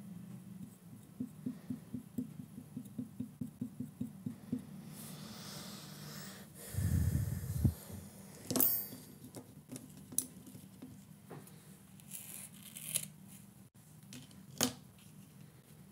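Small handling sounds of craft work with glue and doll-wig curls: a run of quick even taps at about four a second, some rustling, one low thump just past the middle, then a few sharp clicks, over a faint steady low hum.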